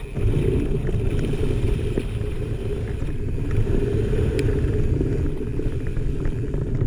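Wind buffeting the action-camera microphone with tyre noise from a mountain bike running fast down a dirt trail, a steady low rumble. A few sharp clicks from the bike come through, about two seconds in and again a little past four.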